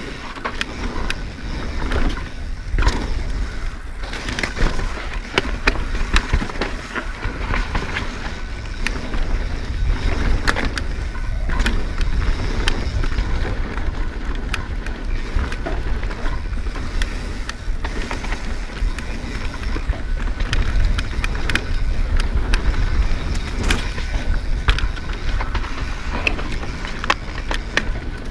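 Mountain bike descending a dirt singletrack at speed: a constant low rumble of tyres rolling over the dirt, with frequent sharp clacks and rattles from the bike over bumps.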